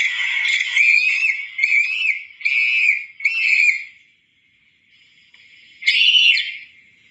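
Cartoon scream sound effects: a high-pitched cry, then four short yelps about a second apart that each rise and fall in pitch, and after a lull one more rising-and-falling yelp near the end.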